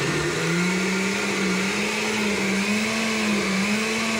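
Oster countertop blender motor spinning up, then running steadily with a slightly wavering pitch as it purées a thick mix of roasted poblano chiles and sour cream.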